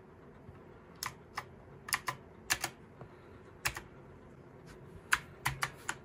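Keys of a Pictek mechanical gaming keyboard being pressed one at a time: about a dozen sharp clicks at uneven intervals, some in quick pairs or threes, rather than continuous typing.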